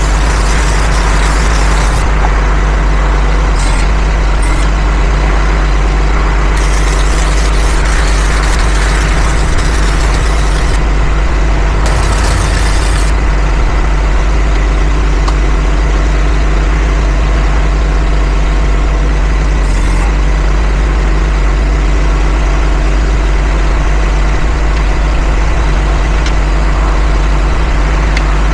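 An engine running steadily at idle, with stretches of MIG welding hiss and crackle over it: a short one at the start, a longer one of about four seconds, then a brief one soon after.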